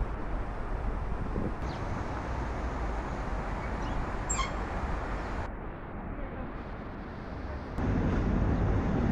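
Outdoor town street ambience: a steady rushing noise with distant traffic, growing louder and deeper near the end.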